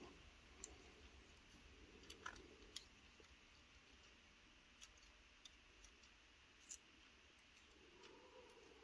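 Near silence with a few faint, light metal clicks here and there: a 25-thousandths feeler gauge blade being tried in the clearance under the engine's lifters.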